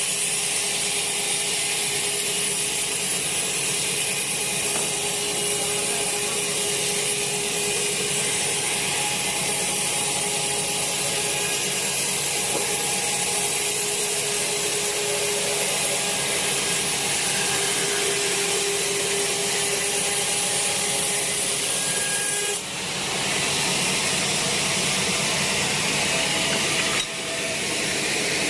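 Sawmill saw ripping a teak log lengthwise, a steady loud noise with a faint whine. The sound changes abruptly twice near the end.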